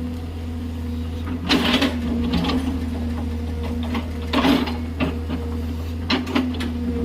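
Excavator's diesel engine running steadily under load, with three short bursts of clattering and scraping as the bucket cuts gravelly soil, about one and a half, four and a half and six seconds in.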